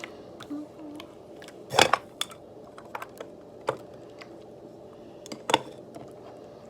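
Scattered light clicks and taps of small objects being handled, with two louder knocks, about two seconds and five and a half seconds in. A faint steady hum lies underneath.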